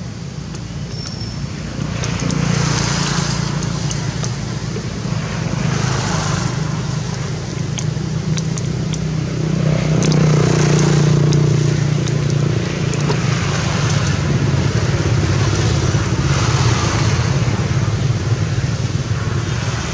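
Road traffic: a steady low engine hum with vehicles passing every few seconds, each pass swelling up and fading away.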